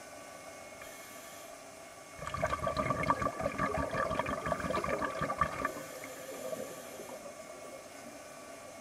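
A diver's exhaled air bubbling out underwater, a crackling burst of about three and a half seconds starting about two seconds in, over a steady faint hum.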